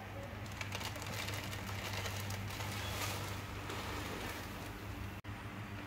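A crackling hiss with many fine pops over a steady low hum, the crackling strongest through the first few seconds; the sound drops out for an instant near the end.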